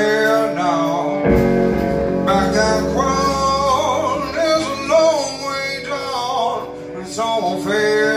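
Live band playing: a man singing over amplified electric guitar and a drum kit.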